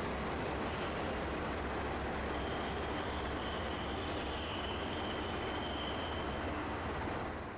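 A rail vehicle running along the track, a steady rumble with a faint high wheel squeal from about two and a half seconds in; the sound fades away at the very end.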